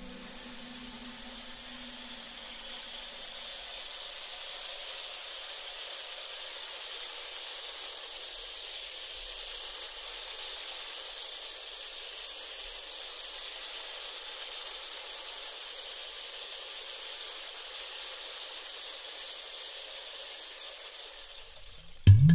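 Steady, even hiss with no tune or rhythm, swelling slightly over the first few seconds and then holding level. Loud music with a drumbeat cuts in just before the end.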